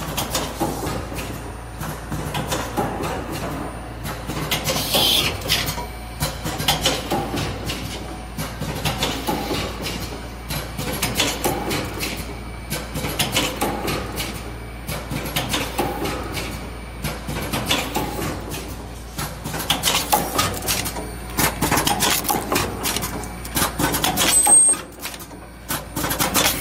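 Plastic ampoule forming, filling and sealing machine running: a continuous run of repeated mechanical clacks and knocks over a low steady hum, with a short high tone near the end.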